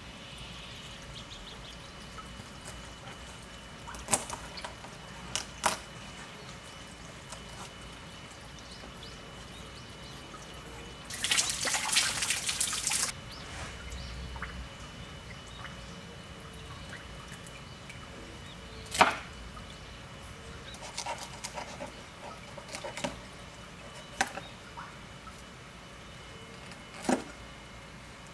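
A knife filleting a bass on a plastic cutting board: scattered sharp taps and clicks of the blade and fish on the board, and a rasping scrape of about two seconds near the middle as the knife works through the fish.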